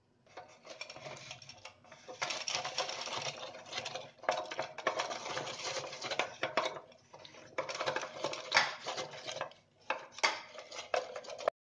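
Hand-operated chilli cutter chopping red chillies: its blades clatter and rattle inside the plastic box in several quick runs with short pauses, then the sound cuts off suddenly near the end.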